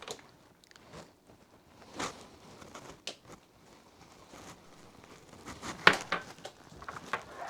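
Quiet kitchen handling sounds: a few scattered light knocks and clicks, the sharpest about two seconds before the end.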